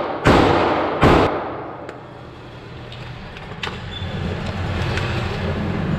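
Two sharp gunshots with a short echoing tail, muffled through the booth walls, about a third of a second and a second in, fired from other lanes of an indoor shooting range. After them a steady low hum runs on under a few light clicks.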